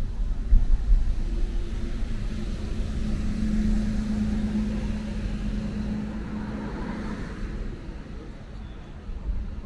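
A motor vehicle passing close by in traffic: its engine hum builds over the first few seconds and fades after about seven seconds, over a steady low rumble of traffic.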